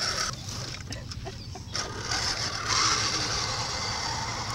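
Electric motor and gears of a scale RC crawler truck whirring as it climbs a dirt slope, growing louder from about two seconds in.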